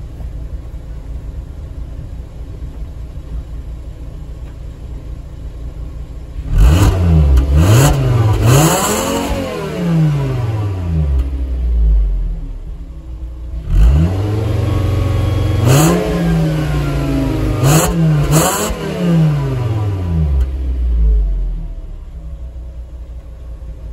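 Volkswagen Jetta 2.5's five-cylinder engine at a warm idle, then revved in two sets of quick blips, the pitch rising and falling with each one. It settles back to a steady idle near the end.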